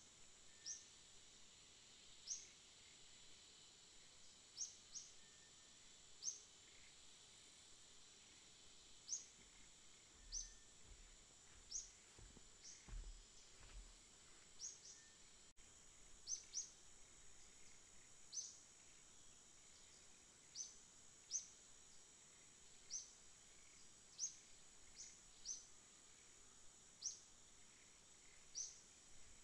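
A small bird repeating a short, high chirp, irregularly about once every second or two, over a faint steady high hiss, with a few faint low thumps about halfway through.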